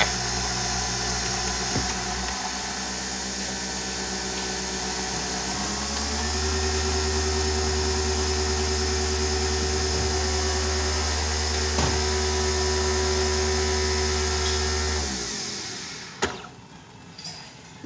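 An electric appliance's motor running with a steady hum. It steps up to a louder, higher setting about six seconds in and cuts off about fifteen seconds in, followed by a click.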